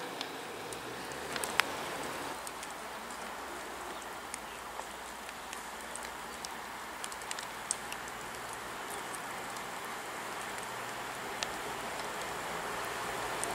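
Steady rain with scattered raindrop ticks and one sharper click about one and a half seconds in. Near the end, the noise of an approaching diesel train slowly grows louder under the rain.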